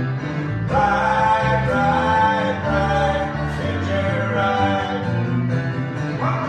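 Live two-piece band playing a 1970s pop-rock song: guitar and steady bass notes, with a melody line that comes in strongly about a second in.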